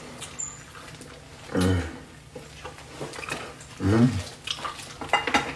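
A man making two short low voiced sounds with a falling pitch while eating, amid small clicks of eating and handling the food.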